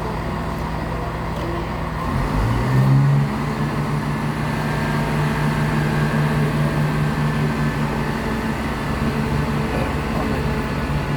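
Diesel multiple unit's underfloor engine running. About two seconds in it revs up, rising in pitch, then holds steady at the higher revs as the train powers up.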